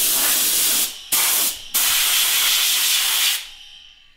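Air-fed gravity-cup spray gun hissing in three trigger pulls: a burst of just under a second, a short burst, then a longer one of about a second and a half that cuts off.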